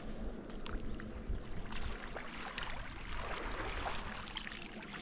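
Open-top yabby lift net pulled up by its rope through a muddy dam, with scattered small clicks of the rope and mesh, then water splashing and streaming off the net as it breaks the surface about three seconds in.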